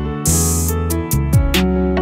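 Background music: held chords over a steady drum beat with cymbals.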